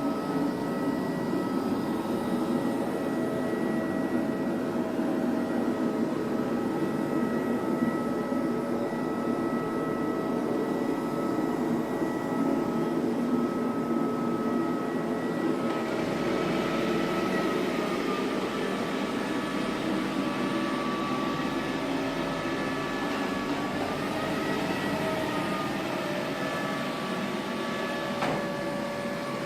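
iClebo Omega robot vacuum cleaner running steadily, its motor and brushes giving a whirring noise with a high whine. About halfway through the sound turns brighter and hissier and the whine dips and shifts in pitch.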